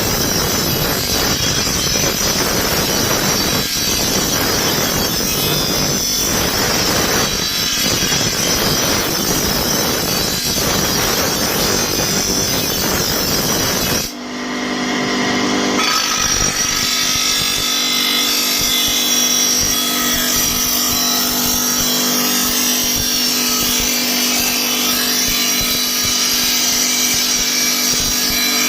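Electric power grinder running against a steel chaff-cutter blade, a steady grinding rasp. Partway through the sound changes abruptly to the grinder's motor hum with a lighter grinding noise over it.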